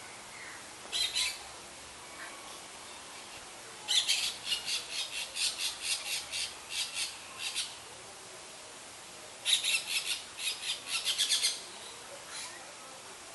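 An animal's rapid chattering calls: harsh high notes repeated about five times a second in three bursts, a short one about a second in, a long run from about four seconds to nearly eight, and another from about nine and a half to eleven and a half seconds.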